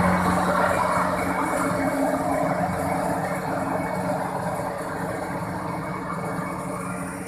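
World Star WS7.0 Plus rice combine harvester running steadily as it moves away through the paddy field, its engine hum fading gradually.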